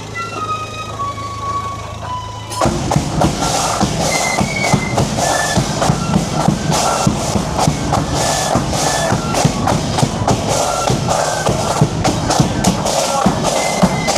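Marching band playing a tune: a high melody steps downward on its own, then the drums come in about two and a half seconds in and keep a steady, loud beat under the melody.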